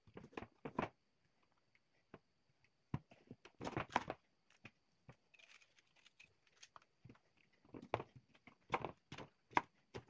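Kitchen knife cutting and de-seeding bell peppers on a plastic cutting board: scattered faint taps and knocks of the blade on the board, with louder clusters of cuts about halfway through and near the end.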